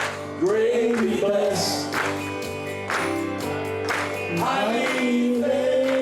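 Male voices singing a gospel song over instrumental accompaniment, the sung line moving and then settling into long held notes near the end.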